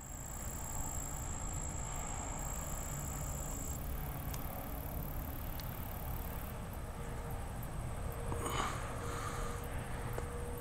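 Steady low rumbling background noise, with a thin high whine for the first few seconds and a brief swell of hiss about eight and a half seconds in.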